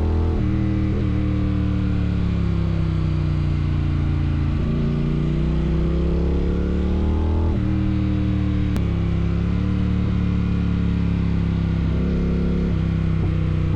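Triumph Thruxton RS's 1200 cc parallel-twin engine running loud through a Weslake exhaust with the dB killer removed, its pitch sliding up and down with sudden drops about half a second in and again around seven and a half seconds in, as with throttle changes and gear changes.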